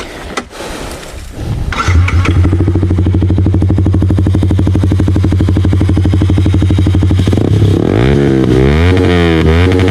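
Yamaha MT-15's 155 cc single-cylinder engine breathing through an aftermarket full-system exhaust: it starts up about two seconds in and idles steadily, then is revved in neutral with repeated throttle blips, the pitch rising and falling, from about seven and a half seconds.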